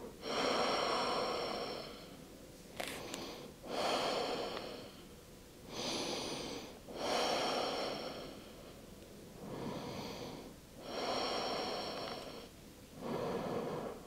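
A woman breathing slowly and deeply while holding a deep stretch: about four breath cycles, each a shorter rush of air followed by a longer one, with brief pauses between.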